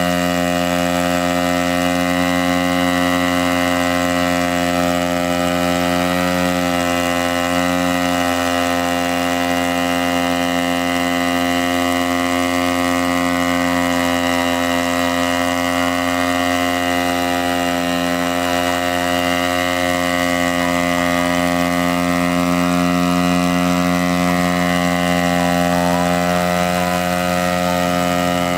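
Hybrid multirotor in a steady hover, its 60 cc petrol engine running at constant speed under the whir of its propellers. The drone holds one steady pitch throughout.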